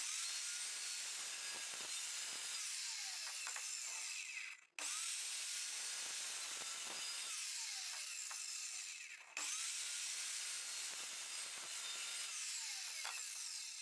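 Evolution R210SMS+ 210 mm sliding mitre saw running and cutting through melamine-faced chipboard, its blade hissing through the board. In each pass the motor's whine falls away as the blade winds down. The sound breaks off abruptly twice, so there are three passes.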